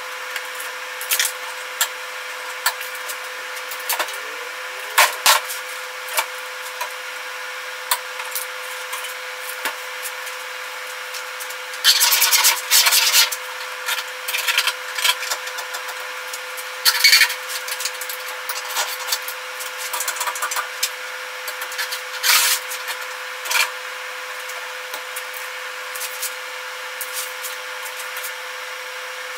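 Sheet-steel door bottom patch panel scraping and rubbing against the truck door shell in short bursts as it is shifted and fitted by hand, over a steady hum.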